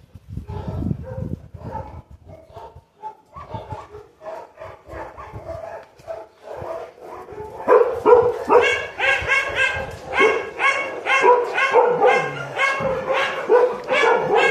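Dogs vocalising: scattered softer yips and whines for the first half, then from about eight seconds in a dog barks quickly and repeatedly, two to three high barks a second.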